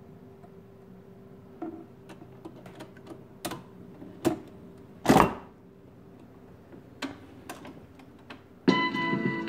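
Restored Decca portable record player being set going: a faint steady hum under a run of mechanical clicks and clunks from its turntable and tonearm, with one louder thump about five seconds in. Near the end a rock song starts playing abruptly through the player's built-in speaker.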